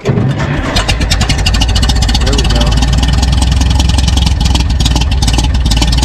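1952 International Harvester TD-9 crawler's four-cylinder engine catching in its gasoline start mode, with compression relieved and partly choked in the cold, then running with a fast, even beat. This is the gasoline warm-up stage before switching over to diesel.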